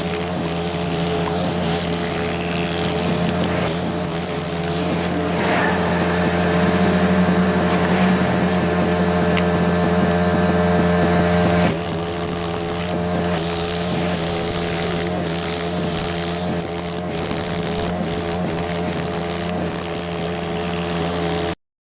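An engine running steadily under load, with a steady hum and a change in pitch and loudness about twelve seconds in. It cuts off abruptly near the end.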